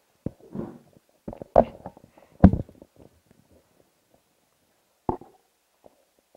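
Microphones being handled: a few short thumps and rustles, the loudest about one and a half and two and a half seconds in, and another near the end.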